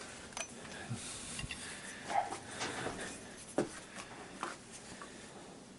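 Faint, scattered light clicks and rubs of a metal drift and the heater fan motor being handled and set in position before being struck.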